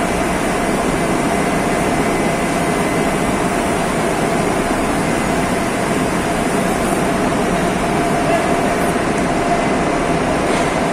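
D51Y-1000 ring rolling machine running: a loud, steady mechanical noise with a constant hum through it and no distinct knocks.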